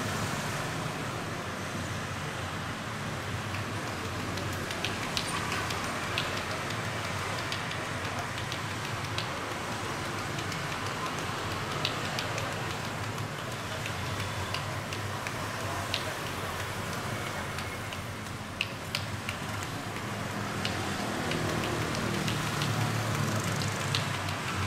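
Steady background noise of street traffic, with occasional short clicks and taps scattered through it.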